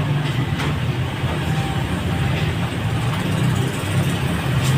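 A machine running with a steady low rumble and an even hiss, with a few faint ticks.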